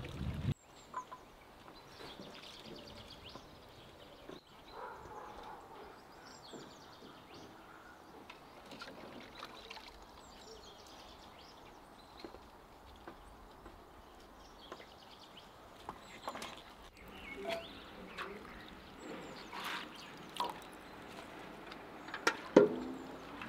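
Quiet outdoor ambience with faint, scattered bird chirps and small clicks. Near the end a hand swishes in a basin of water, making a short splash.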